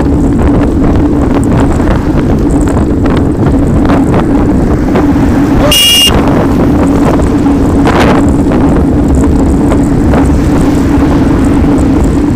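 Wind buffeting on the microphone and tyre rumble from a bicycle riding on tarmac, with a steady hum throughout. A car passes very close alongside about six seconds in, where a brief high tone also sounds.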